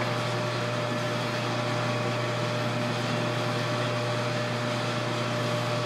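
Metal lathe running under power, its carriage fed along by the leadscrew through the engaged half nut while a single-point tool cuts a square thread. A steady, even hum with a faint higher whine.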